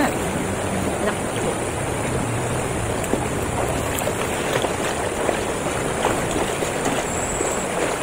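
Steady rush of a shallow, rocky river's flowing water.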